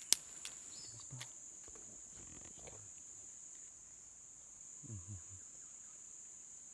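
A steady high-pitched insect drone, with one sharp click just after the start and a few short, low grunting sounds about a second in and again around five seconds in.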